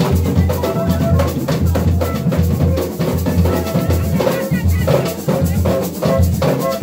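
Several rope-tensioned, skin-headed hand drums struck by hand together in a fast, steady rhythm, with deep open strokes under sharper slaps.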